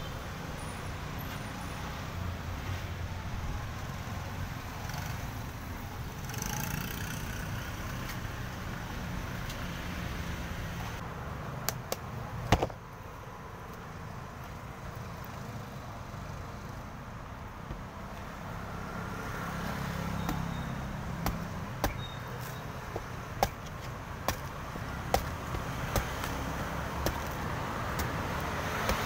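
Steady low rumble of street traffic. About halfway through there is a sharp knock, then a cleaver chopping the husk of a young green coconut on a wooden board: short, sharp strikes about once a second toward the end, over the continuing traffic rumble.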